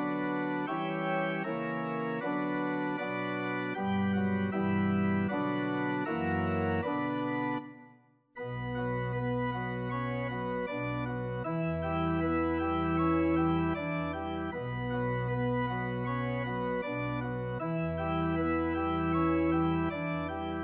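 Organ playing a hymn introduction: chords over a moving bass line. The sound breaks off briefly about eight seconds in, then resumes with deep held pedal notes under the chords.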